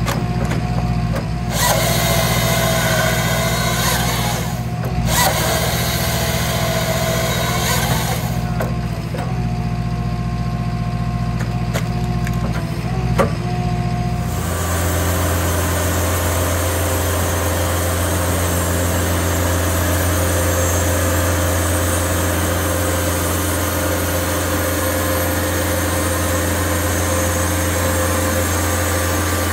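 JCB compact track loader's diesel engine running a Halverson firewood processor attachment, with whining and a sharp crack as it cuts and splits logs. About halfway through this gives way to a Baker Blue Streak portable band sawmill running steadily, its blade sawing through a log.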